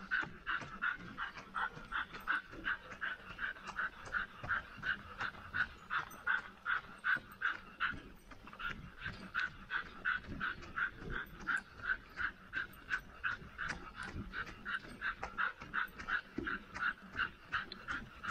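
Dog panting rapidly and steadily, about three pants a second.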